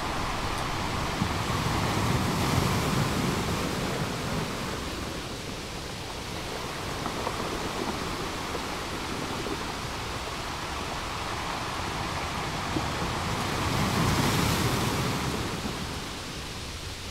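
Steady rushing noise of wind and sea, swelling louder twice, about two seconds in and again near the end.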